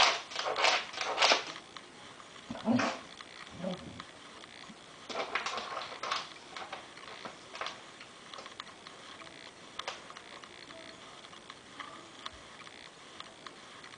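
A pet scratching and sniffing at the floor under furniture, trying to reach a cracker: a quick run of rustling strokes at first, two short louder noises a few seconds in, then only scattered faint taps.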